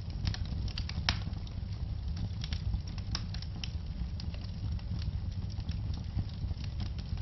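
Fireplace fire crackling: irregular sharp pops and snaps, several a second, over a steady low rumble of the flames.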